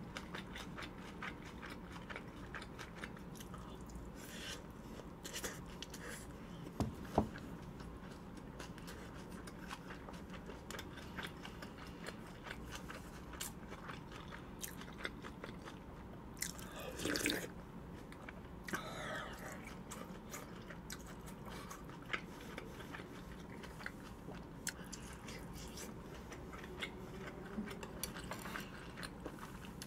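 Close-miked chewing of a mouthful of chive bibimbap and soybean-paste stew: a steady run of small wet mouth clicks, with a louder short noise about 17 seconds in.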